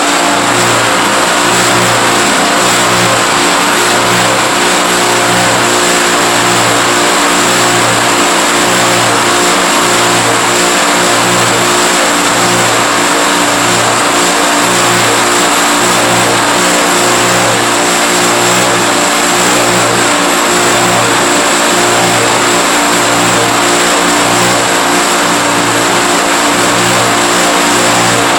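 Clothes dryer running with an abnormal noise: a loud, steady mechanical whir with a low hum that swells and fades about once every second. It is a fault serious enough that the owner wants it repaired urgently.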